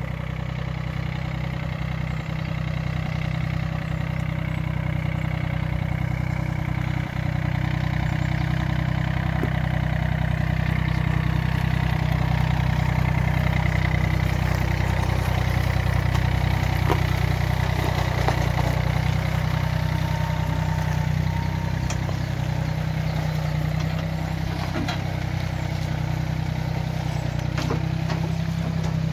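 Yanmar compact tractor's diesel engine running steadily as the tractor drives up and past, getting louder over the first half as it comes closer.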